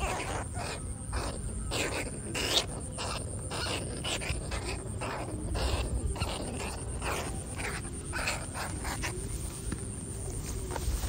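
Short, harsh animal squeals in quick irregular succession over a low rumble.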